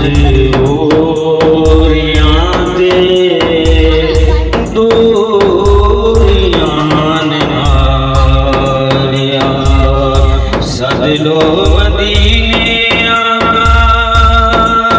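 Devotional naat sung in a melodic, held-note style over a steady low drumbeat with regular clicks.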